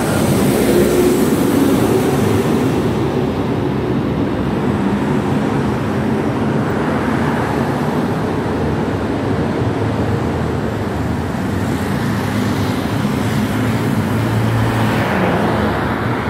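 Street traffic noise: a steady rush of cars driving along the road, with one vehicle passing close near the end.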